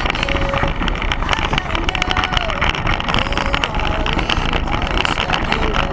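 Unpowered soapbox cart rolling fast downhill on asphalt: a steady loud rumble of hard wheels on the road with constant rattling and knocking from the cart's body. Wind buffets the microphone, and faint wavering calls, likely spectators, rise over it now and then.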